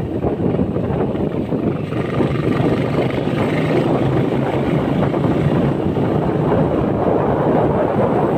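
Motorcycle riding along at steady speed: wind rushing over the microphone, mixed with the bike's engine running underneath.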